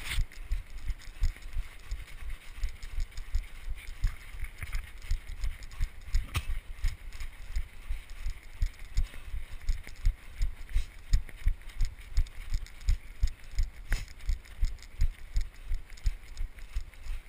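Footfalls of a runner on snow-covered ground, picked up by a GoPro worn on the runner's body: a steady rhythm of dull thuds, about three a second.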